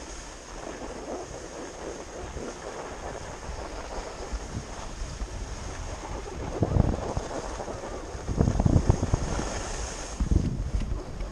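Wind buffeting the camera microphone, a steady rushing noise with irregular low gusts, strongest in the second half.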